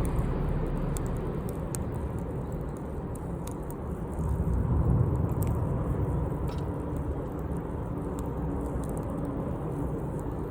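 Campfire burning: scattered sharp crackles and pops of burning wood over a steady low rumble that swells about five seconds in.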